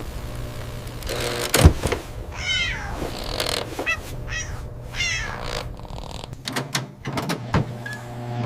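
Kitten meowing about three times in short, bending calls, after a single thump about a second and a half in.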